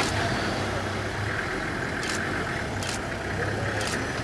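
Safari vehicle's engine idling with a steady low hum, with a few brief faint hissy ticks over it.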